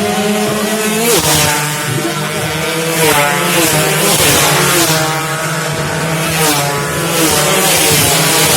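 Several two-stroke underbone racing motorcycles at full throttle, their high buzzing engine notes rising and falling through gear changes as they pass in a pack.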